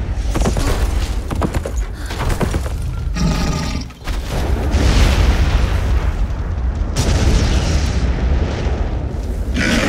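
Film explosion sound effects: a deep, continuous booming rumble with repeated sharp blasts. The rumble briefly drops out about four seconds in, and fresh blasts come about five and seven seconds in.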